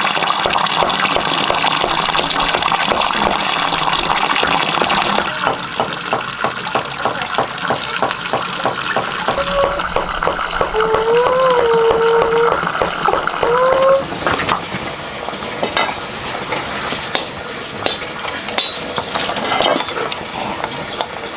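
Cooking-pot and water sounds while porridge is made. Water runs and splashes for the first few seconds, then comes a quick run of regular stirring or scraping strokes in the pot. About halfway through there is a brief high gliding call, and in the quieter second half a few scattered clinks.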